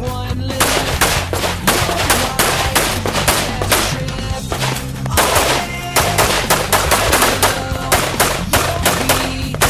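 Rifle shots fired in quick succession, several a second, in a rapid string of fire during an IPSC rifle stage, heard over background music.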